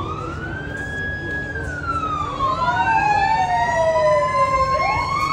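Emergency-vehicle sirens wailing: two slow rising-and-falling wails overlap out of step, one sweeping down while the other climbs, over a low background hum of the street.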